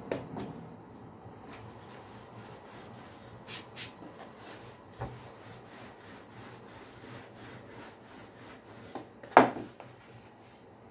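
Wooden rolling pin rolling out soft dough on a floured wooden board, a low rubbing with a few light knocks. A sharp wooden knock near the end is the loudest sound.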